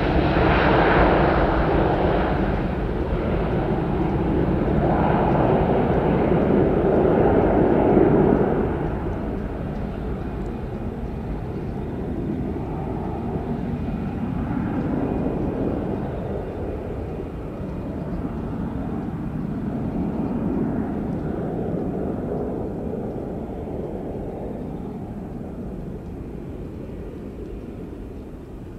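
Boeing 737-400's CFM56 turbofan engines climbing away after takeoff: loud jet engine noise that drops off about eight seconds in, then fades steadily as the airliner recedes into the distance.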